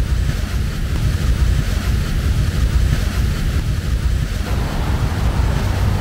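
Loud, steady, low rumbling outdoor noise with no clear pitch, like city traffic and wind on the microphone, with no single distinct event in it.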